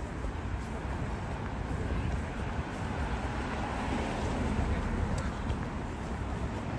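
City street ambience: steady traffic noise from the road alongside, swelling slightly about four seconds in, with passers-by talking.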